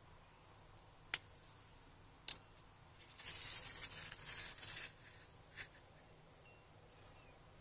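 A small cut amethyst stone clinking on a porcelain plate. There is a light tick, then a sharp ringing clink about two seconds in, then a couple of seconds of scraping and one last soft tick.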